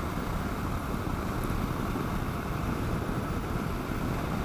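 Steady rush of wind and engine noise from a Kawasaki KLR650 single-cylinder motorcycle cruising along a road, with wind on the microphone.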